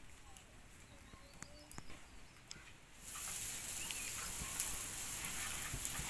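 Open wood fire hissing, with scattered sharp crackles, coming in about halfway through. Before that, only faint ticks and a few faint chirps.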